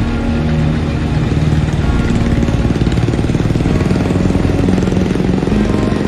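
Swaraj 8100 EX combine harvester running steadily while cutting rice: its diesel engine and threshing machinery working under load.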